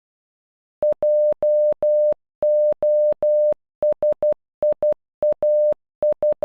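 Computer-generated Morse code: one steady mid-pitched beep keyed in short dots and long dashes, starting about a second in and spelling J-O-S-I-A-H (.--- --- ... .. .- ....), with the last dot falling right at the end.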